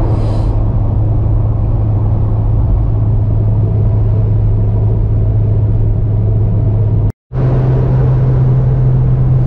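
Steady engine and road drone heard inside a moving car's cabin at motorway speed, a low even hum. It cuts out for a moment about seven seconds in, then resumes slightly higher in pitch.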